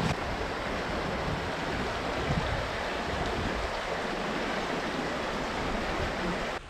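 Open river water running past shelf ice: a steady, even rush that drops away suddenly near the end.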